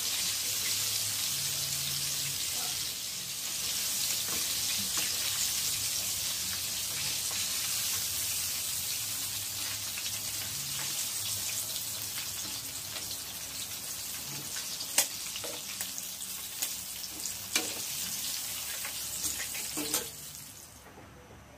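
Chicken wings deep-frying in a pan of oil, a steady sizzle. Metal tongs click against the pan a few times as the wings are lifted out, and the sizzle drops away near the end.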